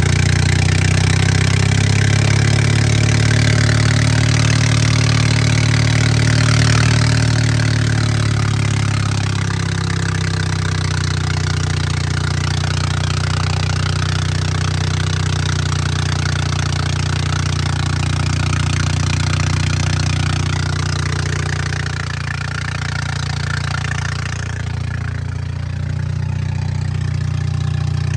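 Bobcat 732 skid steer's carbureted gasoline engine running steadily at idle, a little quieter from about ten seconds in and again near the end.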